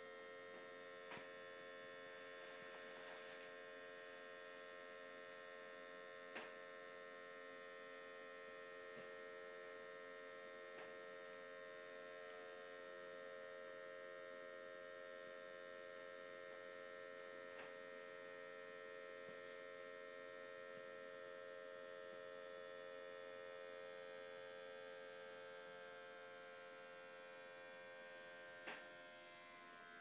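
Dome-type kerosene heater burning: a faint, steady humming tone from the lit burner, with a few light ticks, the sharpest near the end.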